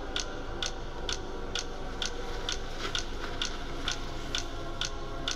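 A clock ticking steadily, about two ticks a second, over a faint held musical drone.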